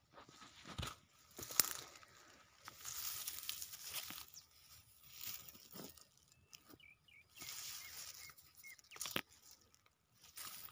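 Rice plants rustling as a hand grabs and handles stalks and grain heads close to the microphone, in uneven bursts with a few sharp crackles.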